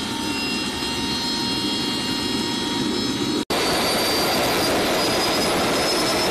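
Jet turbine running with a steady whine over the rush of its airflow. About three and a half seconds in, this cuts off abruptly to a louder, rushing small model jet turbine on a test stand, its high whine slowly rising in pitch.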